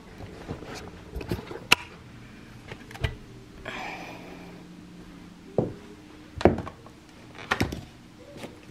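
Handling noise as an extension cord is picked up from carpet and carried: scattered knocks and clicks with a short rustle, over a faint steady hum.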